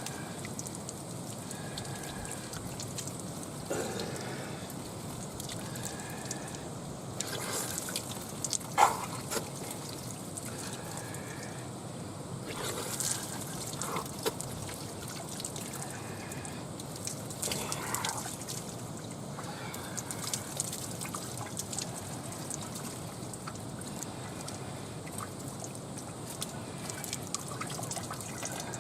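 Water trickling steadily, with scattered light clicks and short faint high calls over it.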